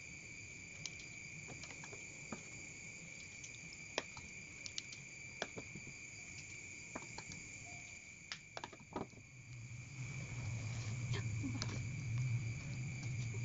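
Steady high chirring of crickets, with scattered light clicks of chopsticks and a spoon against metal bowls as sago dough is twirled up and stirred into soup. A low hum comes in about ten seconds in.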